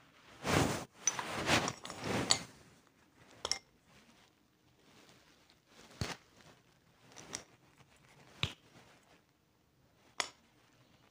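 Dry multani mitti (Fuller's earth) clay chunks being crunched and snapped by hand over a terracotta bowl. There is a run of crumbling crunches in the first two seconds or so, then single sharp snaps and clinks of pieces every second or two.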